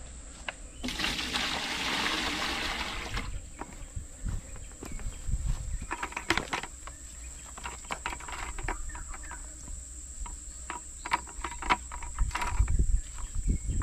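Steady high-pitched insect drone. A rushing noise runs for about two seconds near the start, and scattered clicks and knocks follow, with low bumps near the end.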